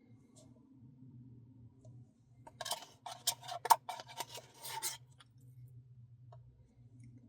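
Close-miked eating sounds: a cluster of scraping and clicking lasting about two and a half seconds, from a spoon working through a cup of Dairy Queen Blizzard ice cream, over a low steady hum.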